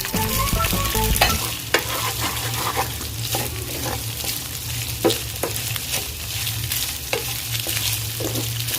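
Marinated chicken pieces sizzling in a little hot oil in a pan while being stirred, with a sharp scrape or knock of the spatula against the pan every second or so. The chicken is being half-cooked in a quick sauté.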